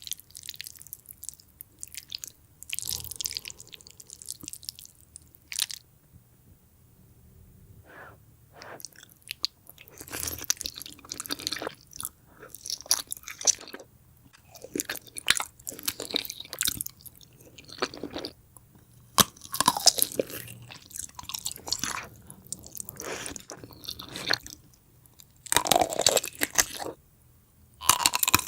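Close-miked eating sounds from a mukbang: a person biting and chewing food in irregular bursts with short pauses, quieter for a moment a few seconds in.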